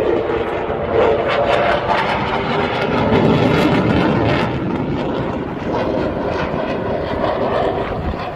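Jet engine noise from a fast jet in an airshow flying display passing overhead: a loud, steady noise that eases a little after the middle.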